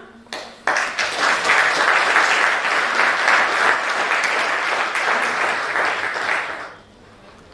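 The last held note of a song ends, then audience applause starts abruptly just under a second in. The applause runs for about six seconds and dies away near the end.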